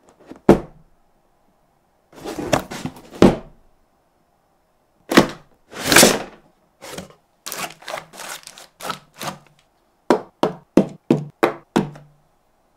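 Cardboard toy packaging being unboxed: a single knock, scraping rushes as a printed outer sleeve slides off a cardboard box about five to six seconds in, and rustling. Near the end comes a run of about six quick light knocks as the plastic DX Zenryoku Zenkai Cannon toy blaster is handled.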